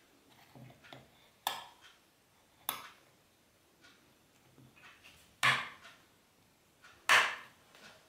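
Temperature control knob of a RODA electric water heater being turned, giving sharp clicks: four clear ones, the last two loudest, with fainter ticks between.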